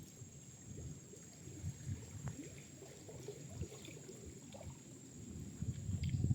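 Small forest stream trickling and burbling, with a steady thin high-pitched whine above it, getting louder near the end.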